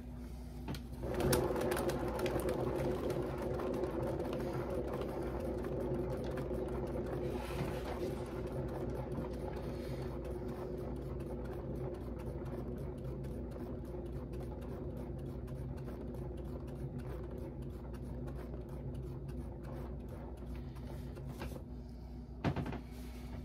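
Paint spinner turning a wet painted canvas: a steady mechanical hum with fast ticking, starting with a click about a second in and stopping with a click near the end.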